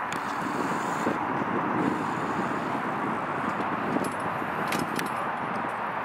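Steady outdoor rushing noise, like wind on the microphone, with a few light clicks and rattles from BMX bikes on skatepark concrete, mostly around four to five seconds in.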